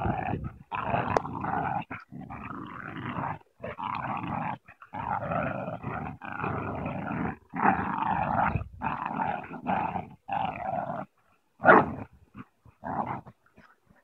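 Pit bull-type dogs (an American Staffordshire terrier and two pit bulls) growling in play while they pull on a rope in a tug-of-war. The growls come in long rough stretches with short breaks, and there is one short, louder sound about twelve seconds in.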